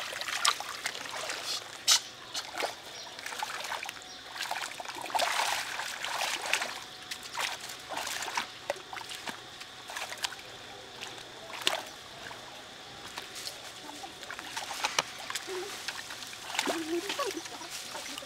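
Splashing and sloshing in shallow muddy water as hands and legs churn through it while groping for fish, with many short, irregular splashes.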